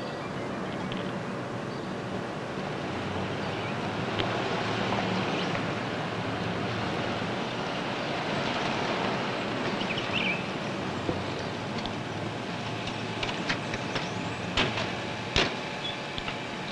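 Car engine running and tyres crunching over a dirt track as a car drives slowly along and pulls up. Several sharp knocks come near the end.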